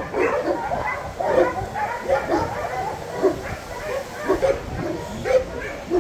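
Many kennelled dogs barking and yipping at once, the barks overlapping without a break.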